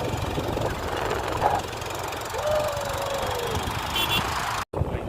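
Motorcycle running while riding on a hill road, with wind noise on the microphone. About halfway through there is a brief falling tone, and the sound cuts out for a moment near the end.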